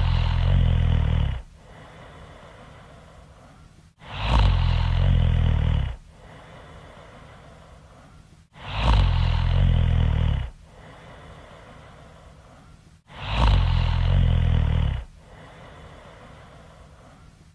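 Really loud snoring: four rattling snores, each about one and a half to two seconds long, come at even spacing about every four and a half seconds, with a much quieter breath between them. The snores repeat almost identically, each starting abruptly, like a looped snore sound effect.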